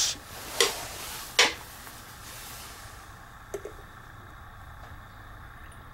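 Gasoline being poured from a small spouted can into a carburetor's metal float bowl: two sharp clicks as the can and bowl are handled, then a faint soft trickle.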